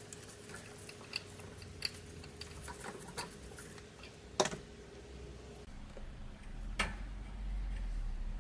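Small clicks and ticks of an impulse sealer's parts being handled as it is taken apart, with two sharper knocks, one about halfway through and one near the end.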